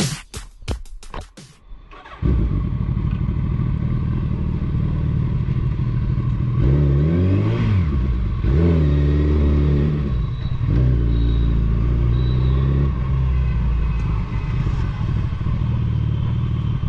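Suzuki Hayabusa's inline-four engine running through a Two Brothers Racing aftermarket exhaust, revved so that its pitch rises and falls several times. A short stretch of electronic music cuts off about two seconds in, just before the engine comes in.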